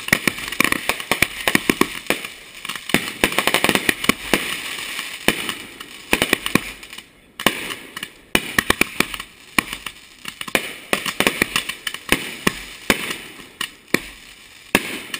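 Fireworks fired in rapid succession from one spot: many sharp launch pops and bursts each second over a running crackle, with a short break about seven seconds in.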